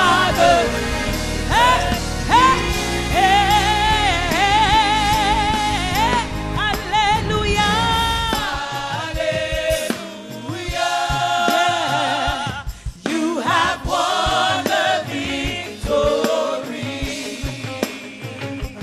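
Gospel worship music: singers with vibrato over a band, and the bass and drums drop away about halfway through, leaving mostly voices.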